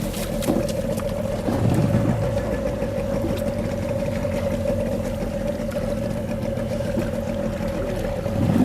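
Fishing boat's engine running steadily, a constant drone with a held mid-pitched tone over a low hum.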